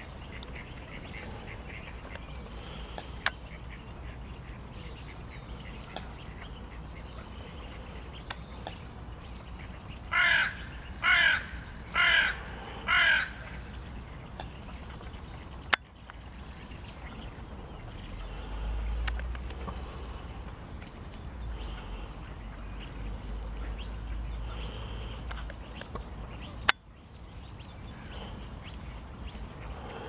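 A crow cawing four times, about a second apart, near the middle. A few faint clicks and a low rumble lie around it.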